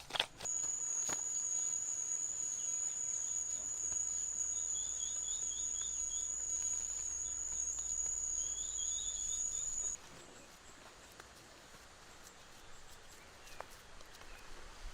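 A steady, high-pitched insect trill like a cricket's, with two short bursts of bird twittering; it cuts off suddenly about ten seconds in, leaving faint background noise.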